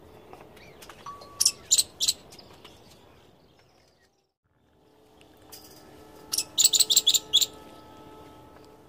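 Palm squirrel giving sharp, high-pitched chirps: three about a second and a half in, then a rapid run of about seven near the end.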